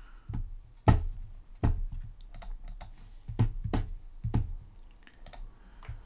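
Irregular clicking from a computer mouse and keyboard being worked, about a dozen sharp clicks with a low thump under each. The loudest comes about a second in.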